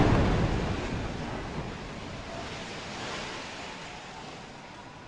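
Rumble of a bombed high-rise tower collapsing just after the blast, a dense noisy roll that fades steadily, swelling slightly about three seconds in.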